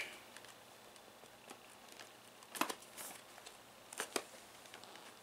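A boxed Bluetooth speaker's packaging being handled: a few faint crinkles and taps, around two and a half and four seconds in, against quiet room tone.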